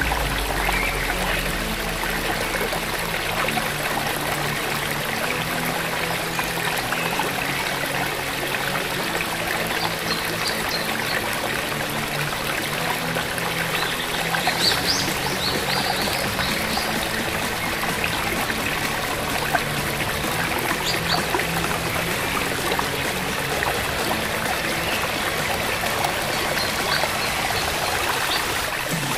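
Steady flowing-stream water with soft background music: sustained low notes changing every second or two. A few brief high notes come about halfway through.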